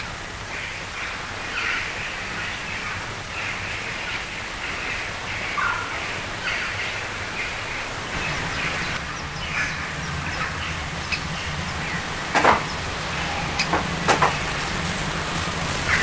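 Birds calling: short harsh calls repeated every second or so. A steady low hum comes in about halfway, and a few sharp knocks or clicks come near the end.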